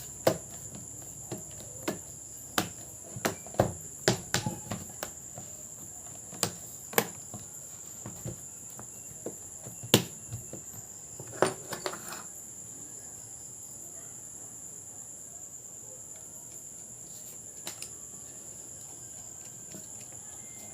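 Scattered sharp clicks and light knocks of laptop parts being handled and fitted back together, thickest in the first half and sparse later, over a steady high-pitched hum.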